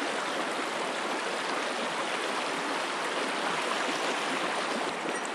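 Shallow river running over a rocky bed: a steady rush and gurgle of water around the stones.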